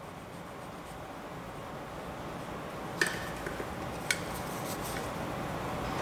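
Dampened cloth rag rubbing over a painted plastic grill, a soft steady scrubbing that slowly grows, with two light clicks about a second apart past the middle.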